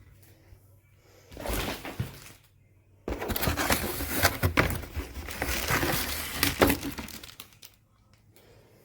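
Crinkling and clattering of things being handled, in a short burst a little over a second in and a longer, louder stretch from about three seconds in until near the end.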